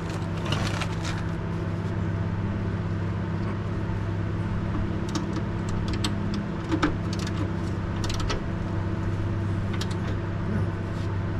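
A hand wrench clicking and clanking on rusted rear-suspension bolts as they are worked loose, with a sharper metal clank about seven seconds in. A steady low hum runs underneath.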